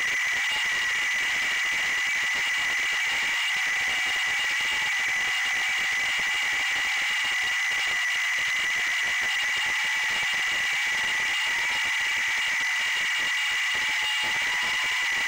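GEPRC Sparrow micro FPV quadcopter's motors whirring in flight, their pitch drifting up and down with throttle, over a steady high whine and hiss.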